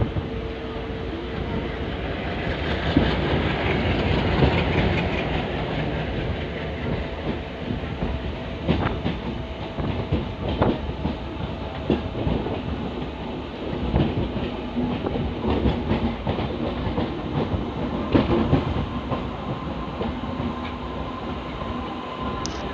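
Twin ALCO WDG-3A diesel locomotives chugging past, their engines most prominent over the first few seconds, followed by the passenger coaches rolling by with their wheels clattering over the rail joints.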